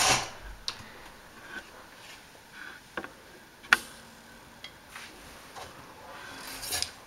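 Front-loading washing machine door being handled: a few light clicks and knocks, with the sharpest click a little under four seconds in. Near the end there is a soft rustle as clothes are pushed into the drum by hand.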